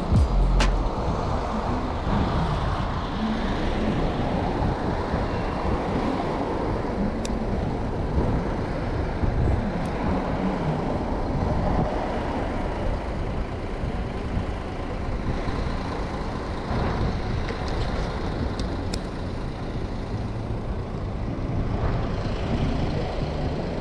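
Road traffic at a city junction: buses and cars running and passing, a steady traffic noise.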